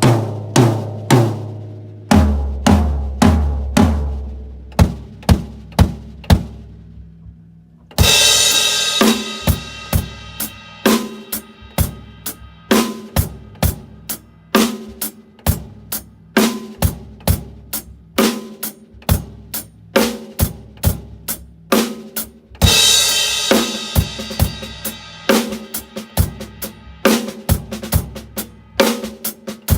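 Pearl Vision birch drum kit played: a fill down the toms, falling in pitch and left to ring out. About eight seconds in, a crash cymbal opens a steady beat of bass drum, snare and cymbals, with another crash near twenty-three seconds.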